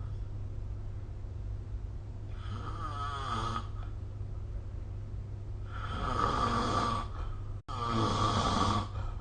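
A sleeping person snoring: three snores, each about a second long, the last two close together, over a steady low hum.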